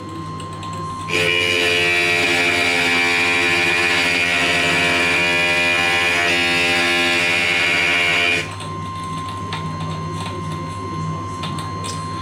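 Diamond glass grinder running, with the edge of a piece of float glass pressed against the bit from about a second in to about eight seconds in: a loud, steady grinding that starts and stops abruptly, smoothing off a sharp edge. Before and after that, the grinder's motor runs on with a lower hum.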